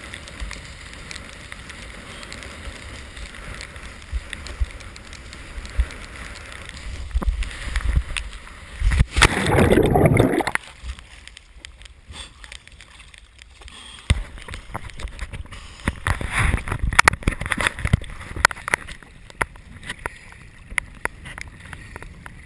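Wind and water rushing past a head-mounted action camera while windsurfing, then a loud splash about nine seconds in as the rider falls into the water. After it, uneven water sloshing and splashing close around the camera as he floats beside the board.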